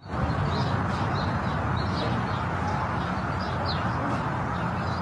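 Birds chirping several times in short high calls over a steady low rumble.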